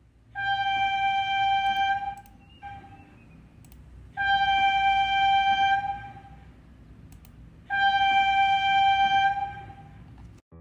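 Train whistle sounding three long blasts, each a steady high note lasting under two seconds, evenly spaced, over a low rumble.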